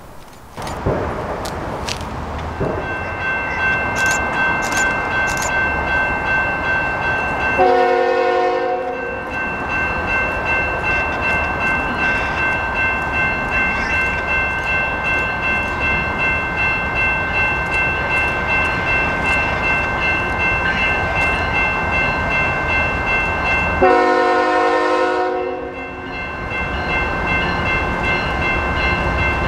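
CN freight train passing close by, its wheels rumbling with a rhythmic clatter of about two beats a second. The lead locomotive sounds its horn in two blasts of about a second and a half, the first about 8 seconds in and the second about 24 seconds in. A steady high-pitched squeal runs underneath from about 3 seconds on.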